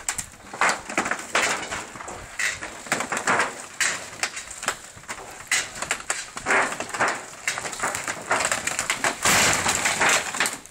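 Small wooden garage being pushed over by hand: the timber frame creaks and cracks in a run of sharp snaps, then crashes down in a longer, loudest burst of splintering near the end.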